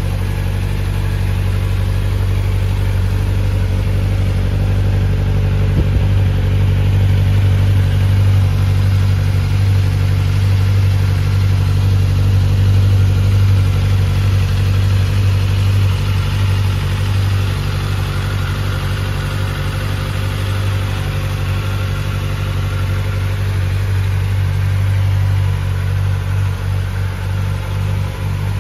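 Kawasaki Ninja ZX-4R SE's 399 cc inline-four engine idling steadily.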